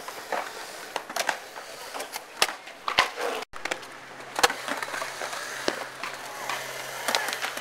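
Skateboard wheels rolling on a concrete bowl, with repeated sharp clacks of the board and trucks striking the concrete and coping. The sound cuts out for an instant about three and a half seconds in.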